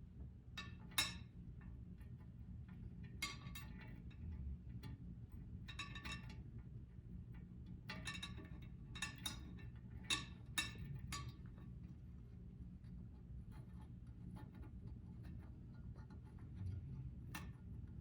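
Scattered light metallic clicks and clinks of small parts: glass-retaining clips and screws being handled and fitted on a wood stove's door. Most come in a cluster through the middle, with one more near the end, over a faint low hum.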